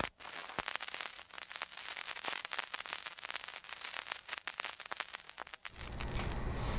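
Crackling TV-static glitch sound effect: dense, irregular clicks and hiss. Near the end it gives way to a steady low outdoor rumble.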